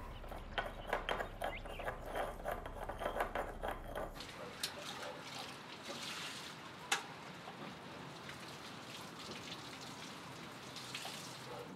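Water being poured and splashing at plastic storage barrels, with a couple of sharp knocks of containers. A quick run of short sounds fills the first few seconds.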